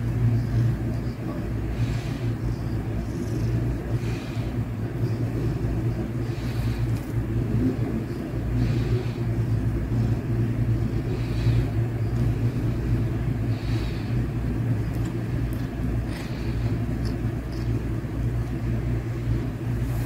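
Cat purring close up: a steady low rumble.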